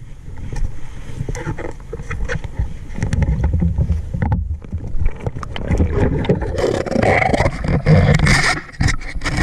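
Muffled underwater rumble of water moving around the camera, with many small knocks and bumps as the float line and bottle are handled. About two-thirds of the way through it changes to brighter splashing and water noise at the surface.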